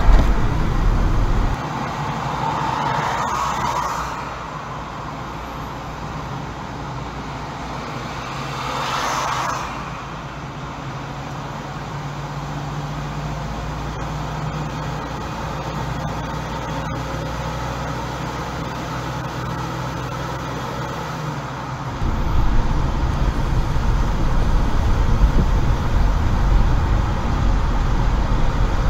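Car driving in traffic: steady road and engine noise, with two short whooshes of passing vehicles a few seconds in and again near the 9-second mark. A heavier low rumble sits under it at the start and comes back about three-quarters of the way through.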